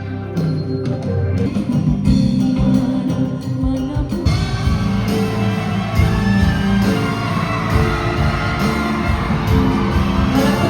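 Live music from a Malaysian traditional orchestra with a voice singing, the ensemble growing fuller about four seconds in.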